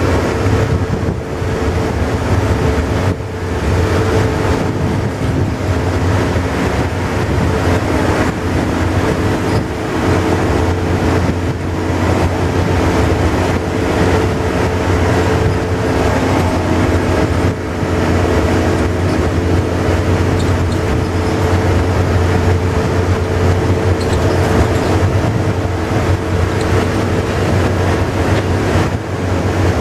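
Volvo double-decker bus's diesel engine and drivetrain heard from inside the lower deck while cruising, a steady drone with a low hum and a higher whine over road noise.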